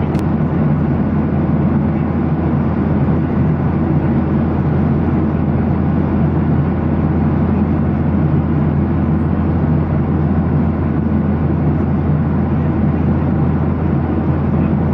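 Steady cabin noise of a Boeing 737-800 in flight: the even roar of its CFM56-7B engines and the airflow over the fuselage, heaviest in the low range.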